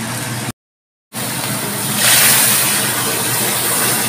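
Sauce bubbling in a steel wok over high heat, a steady sizzling hiss. It cuts out briefly, then a louder, brighter steady hiss of cooking starts about two seconds in.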